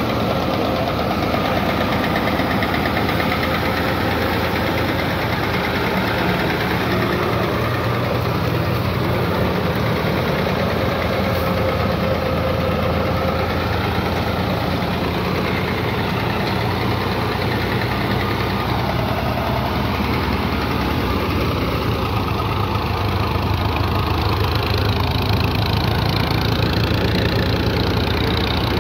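Fiat 480 tractor's three-cylinder diesel engine running steadily under load, powering a wheat thresher through its PTO shaft, mixed with the thresher's own steady whir and rattle.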